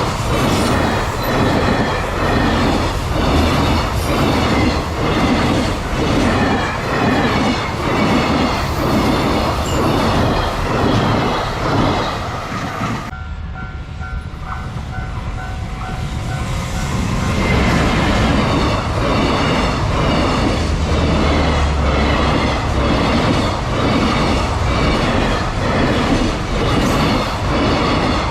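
Freight train wagons rolling past at speed, their wheels clattering over the rail joints in a steady rhythm of about two knocks a second. A little under halfway through, the clatter drops away for a few seconds, leaving a steady pulsing two-tone sound, before the rolling clatter starts again.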